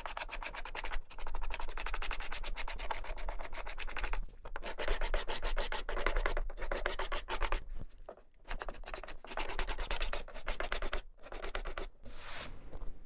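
Steel card scraper pushed in several long strokes across a walnut end-grain cutting board: a fast, gritty chatter with short breaks between strokes. It is scraping over hard bits of dried glue that the woodworker avoids planing because they would chip a plane blade.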